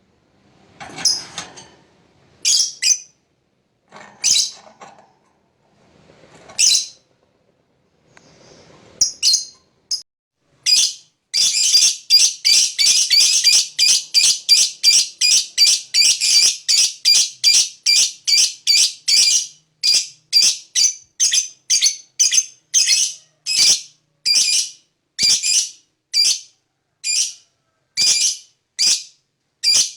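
Lovebird calling: a few separate shrill chirps, then, about a third of the way in, a long unbroken chattering trill, the 'ngekek panjang' that keepers prize. The trill breaks into rapid separate chirps, about two a second.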